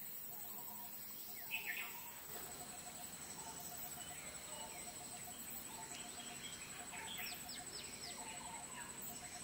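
Birds calling: a short rapid run of pulses repeating about once a second, with scattered higher chirps, one louder about a second and a half in. A thin steady high tone runs behind them.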